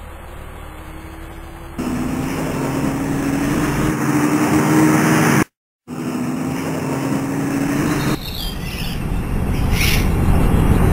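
Car engine sound effect running and pulling away, its hum rising slowly in pitch and loudness. The sound cuts out for a moment about halfway through, then turns rougher, with short squeals near the end.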